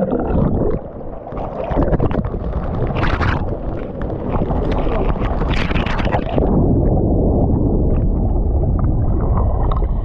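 Muffled churning water and splashing, heard through a camera at or under the water's surface, with a couple of brighter splashes about three and six seconds in.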